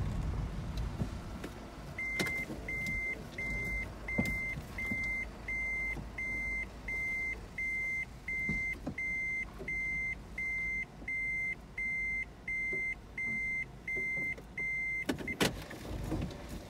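An electronic warning beep at one steady high pitch, repeating evenly about once every 0.7 seconds, some twenty times, then stopping, over the low rumble of a car's interior. A knock follows near the end.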